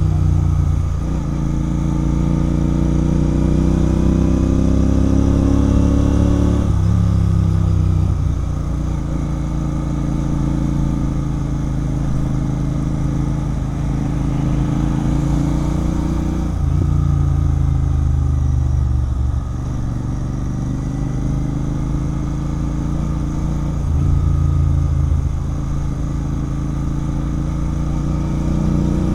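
Royal Enfield Continental GT 650's parallel-twin engine through a Red Rooster aftermarket exhaust, riding on the road. The engine note shifts in pitch several times as the throttle and revs change.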